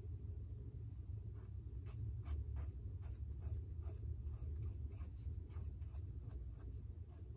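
Ink pen scratching across sketchbook paper in a series of short, quick strokes, starting about a second and a half in, over a low steady hum.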